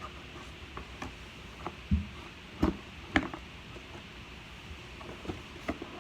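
Scattered small clicks and knocks of a slime kit's box and packets being handled, with three louder thumps about two to three seconds in.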